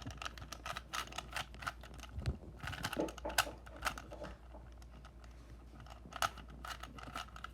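Rubik's cube being twisted by hand: quick, irregular plastic clicks and clacks of the turning layers, several a second.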